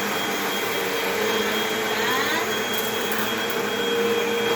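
Upright vacuum cleaner running steadily with a constant motor whine, pushed and pulled over carpet, with brief crackles from debris being sucked up.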